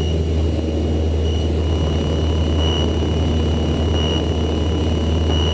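Light aircraft's piston engine and propeller droning steadily, heard from inside the cockpit, with power on in a steep turn. A faint high beep repeats about every second and a half.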